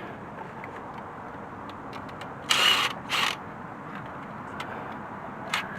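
Two short rasping bursts of a hand ratchet working a bolt on the timing chain tensioner, about half a second apart near the middle, with a few light clicks of tools near the end.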